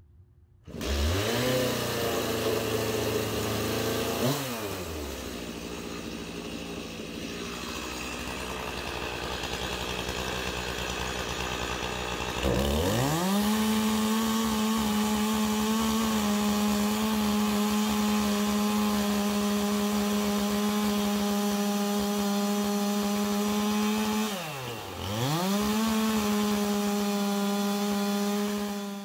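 Stihl MS 391 two-stroke chainsaw revving briefly and dropping back to idle. About twelve seconds in it climbs to a steady full-throttle pitch, cutting through a log on a vertical chainsaw mill. The engine note dips once near the end and comes straight back up.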